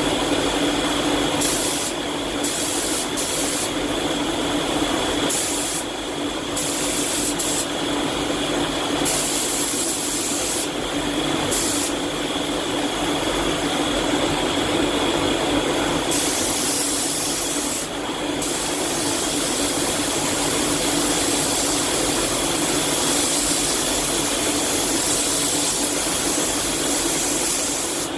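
Iwata Hakone spray gun hissing as it sprays clear coat. The hiss keeps starting and stopping as the trigger is pulled and released between passes, over a steady mechanical drone.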